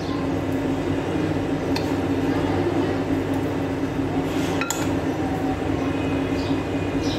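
A metal spoon clinks a few times against a glass baking dish while spreading a chicken topping over pizza dough, over a steady low background hum.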